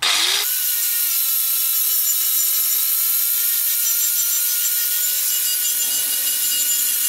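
Angle grinder running with its abrasive disc pressed on a rusty steel beam, grinding the rust off to bare metal. It spins up right at the start, then holds a steady whine under a loud, hissing rasp.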